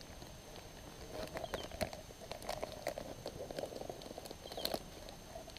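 Faint crinkling of a plastic zip-top bag and small clicks and knocks as the bag of rehydrated pasta is handled over a metal cook pot.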